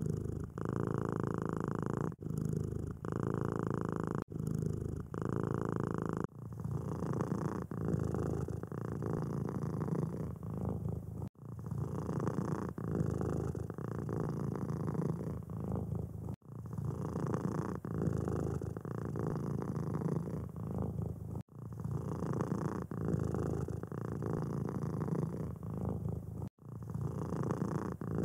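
Domestic cat purring close up: a steady low rumble with a rhythmic flutter, broken by a brief gap every few seconds. The tone of the purr changes about six seconds in.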